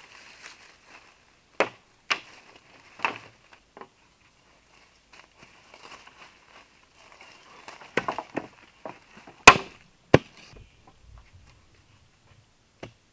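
Sharp wooden knocks and chops as wooden poles are cut and handled: about seven separate strikes, the loudest about nine and a half seconds in.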